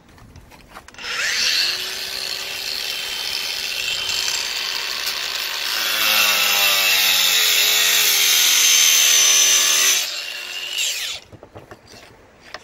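Power saw spinning up with a rising whine and cutting through a cement siding board for about nine seconds, getting louder about halfway through, then winding down.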